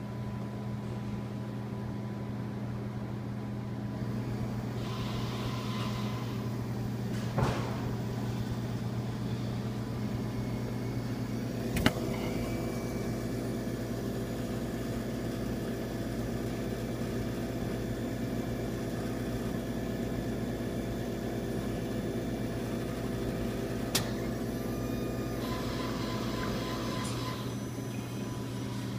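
Coffee vending machine dispensing into a paper cup: a steady electric hum from its motor and pump. Two spells of hissing come about five seconds in and near the end, and three sharp clicks fall in between.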